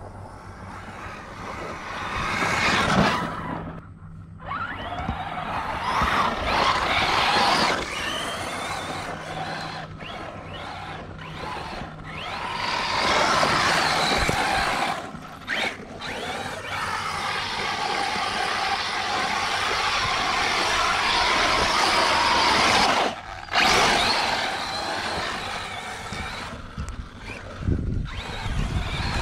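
Arrma Mojave RC desert truck driven hard on loose sand: motor whining and tyres spraying sand in long throttle passes that swell and fade, with the throttle cut abruptly a few times.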